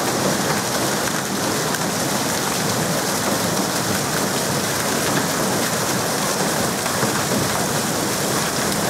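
Steady rush of falling water spattering onto a surface, without let-up.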